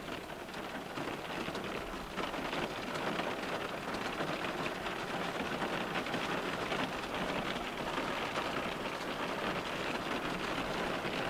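Rain falling on a car's glass: a dense, steady hiss of countless small drop hits, a little louder from about two seconds in.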